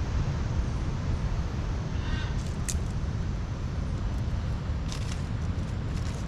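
Steady low rumble of wind buffeting the microphone, with two faint short calls about two and five seconds in.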